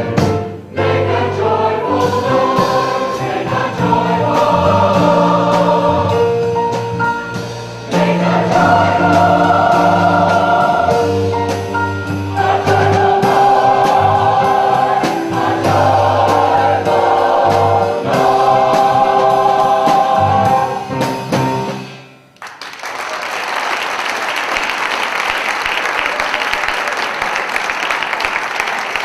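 Mixed choir singing to the end of a song, the last note cutting off about 22 seconds in, then audience applause.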